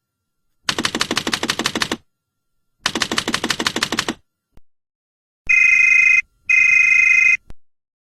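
Cartoonish clock sound effect: three bursts of rapid ticking, each about a second and a half long at about eight ticks a second, then two short ringing tones near the end, like an alarm bell going off.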